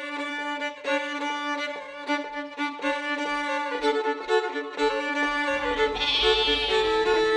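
Fiddle tune played over a sustained drone note, with soft low beats keeping time. A low rumble joins about halfway through.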